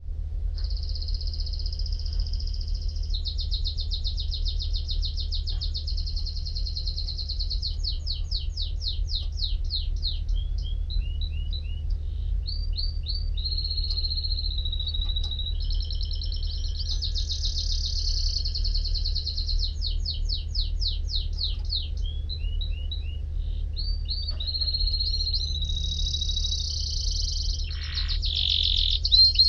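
Domestic canary singing a long unbroken song of rapid trills, rolls and repeated chirps, changing phrase every second or two, over a steady low hum.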